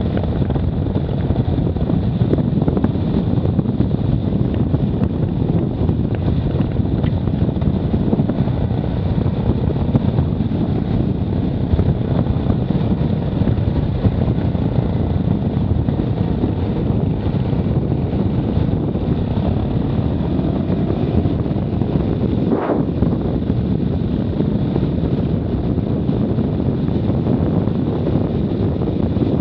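Wind buffeting the microphone over the steady running of an off-road vehicle on a trail.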